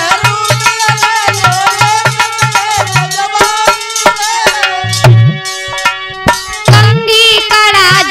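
Instrumental interlude of a Hindi Holi folk song: a held melody over a steady hand-drum beat with bright percussion strokes. The music thins out briefly about two-thirds of the way in, then comes back in full.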